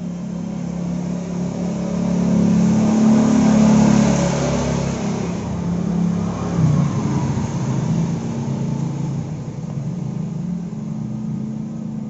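Background music: a low sustained drone that swells about three to four seconds in, then slowly fades.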